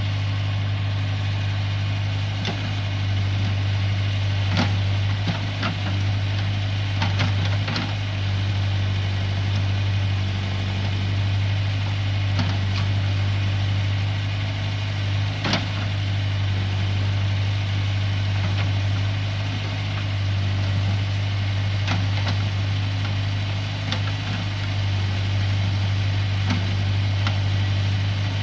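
JCB 3CX backhoe loader's diesel engine running steadily, with several sharp cracks scattered through, the loudest about fifteen seconds in.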